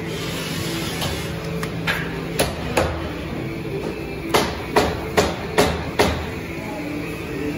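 Sharp knocks from fastening a drywall return strip onto a window frame: a few single knocks, then a steady run of five about two and a half a second, over a constant workshop hum.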